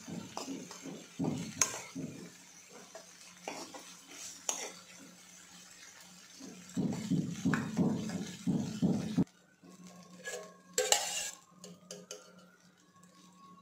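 Steel spoon scraping and clinking against a nonstick kadai as fried vegetables are stirred and scooped out. About nine seconds in it drops to quiet, with a single sharp knock near eleven seconds.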